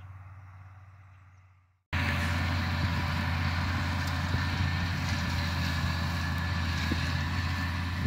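Tractor pulling a disc mower-conditioner through heavy hay: a loud, steady drone that starts suddenly about two seconds in, after a faint fading hum.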